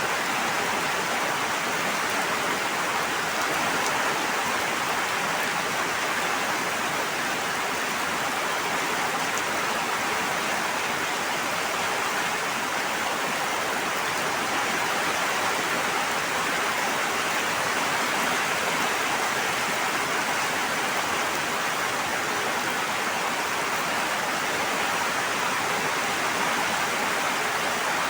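Steady rushing water, an even unbroken hiss with no change in level.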